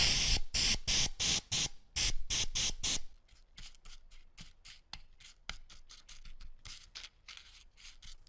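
About a dozen quick, loud bursts of liquid spray over the first three seconds, wetting small brass fittings and a chain in a tin jar lid. Then a small brush scrubs the wet chain and fittings in rapid short strokes, quieter.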